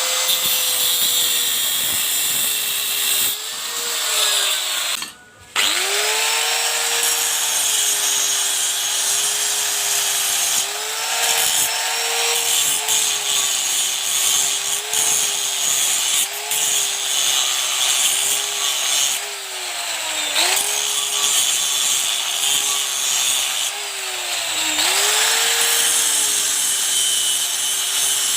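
Handheld electric power tool running under load: a steady motor whine that sags each time it bites into the work and recovers, over a rasping noise. It stops for a moment about five seconds in and spins back up.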